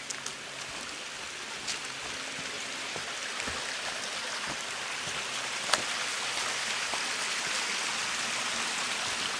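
Steady rush of running water from a stream, growing gradually louder, with a few faint clicks near the start.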